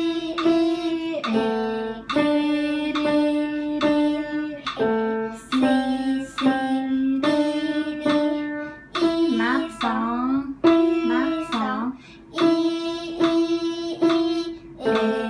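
Upright piano played slowly by a child: a simple beginner's melody of single notes and repeated notes at an even tempo. About two-thirds of the way through there are a few quick rising glides in pitch.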